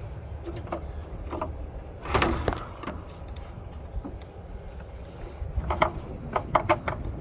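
Plastic clicks, knocks and a scraping rustle as a turn-signal housing and its wiring are handled and fed back into the truck's fender opening, with a quick run of sharp clicks near the end, over a steady low rumble.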